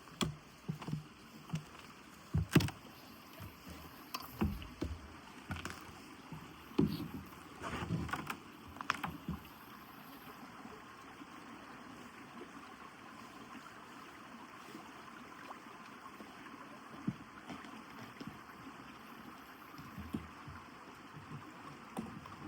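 Footsteps crunching on an icy, snowy trail, an irregular run of sharp steps in the first ten seconds, over the steady rush of a stream.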